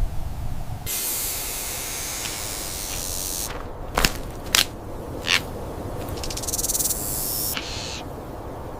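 Diamondback rattlesnake's steady high hissing buzz, starting about a second in and stopping near the end. Three sharp clicks land around the middle.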